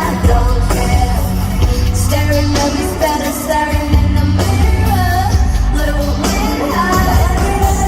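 Pop song performed live with female vocals singing over a loud backing track with heavy bass and a steady beat.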